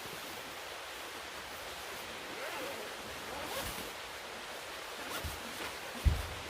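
Steady rushing of a river. A few faint wavering sounds come about halfway through, and a dull thump near the end is the loudest sound.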